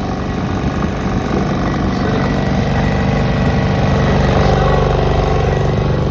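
MASE van-mounted generator-compressor set running steadily with an engine hum.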